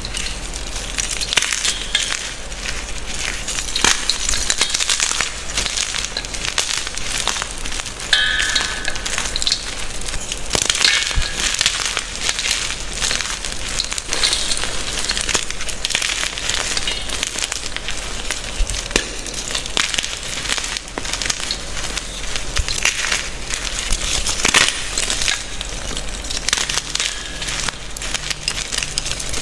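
Gym chalk being crushed and crumbled by hand: a dense, continuous crunching with fine crackling from chunks breaking and powder being squeezed.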